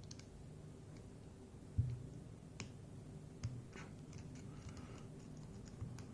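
Scattered small metallic clicks and taps, the strongest about two seconds in, as a tool works at the retaining circlip on the back of a lock cylinder to pry it off.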